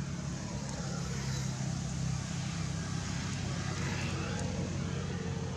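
A steady low motor hum with even background noise, typical of a motor vehicle's engine running nearby.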